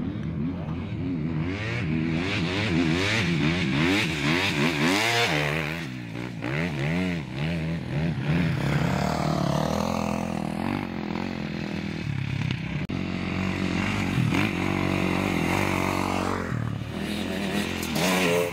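Off-road dirt bikes racing, their engines revving up and falling back over and over as the riders work the throttle and shift, with more than one bike's engine note overlapping.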